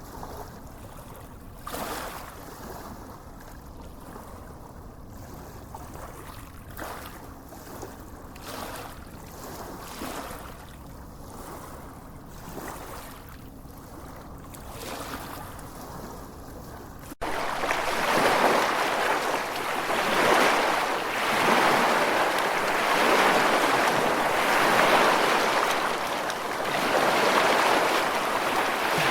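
Gentle sea waves washing onto a sandy beach, swelling and fading every few seconds. About seventeen seconds in, the sound jumps suddenly louder and brighter, the surf much closer.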